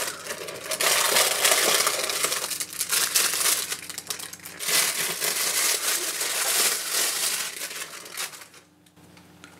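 Thin plastic wrapping bag crinkling and rustling as a camera lens is lifted out and unwrapped, stopping about eight and a half seconds in.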